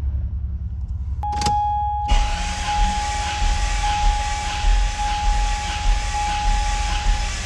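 Toyota Supra 2JZ straight-six cranked on the starter with the throttle held wide open and the fuel disconnected for a compression test: steady cranking with a rhythmic low chugging, not catching. It follows a click about a second in, and a steady high electronic warning tone sounds along with the cranking.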